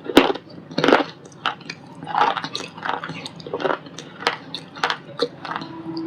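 A white ball-shaped lump of shale stone crunching and crumbling in a run of irregular crisp crunches, about one or two a second.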